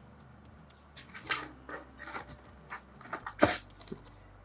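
Handling noise from unpacking gimbal parts: irregular clicks, knocks and short scrapes of plastic and metal parts against a foam packaging tray. The loudest is a sharp knock about three and a half seconds in.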